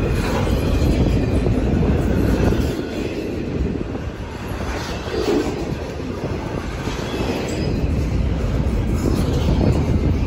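Double-stack container well cars rolling past close by: a steady rumble of steel wheels on the rails with clattering of the cars, and brief wheel squeal about five seconds in.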